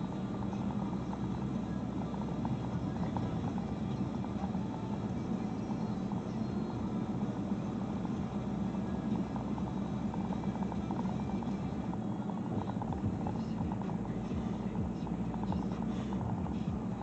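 Steady engine and road noise inside a moving car's cabin as it drives along at street speed.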